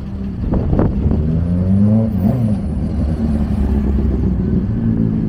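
Car engines running in slow traffic, with one engine revving up and back down about two seconds in.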